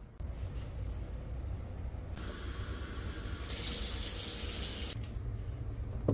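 Kitchen tap running water into a glass vase for about three seconds, starting about two seconds in. The hiss of the water changes to a brighter tone about halfway through, then cuts off.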